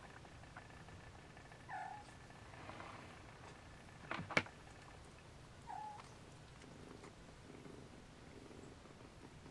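Siamese mother cat and nursing kittens purring softly, with two short squeaky mews that drop in pitch and a single sharp click about halfway through.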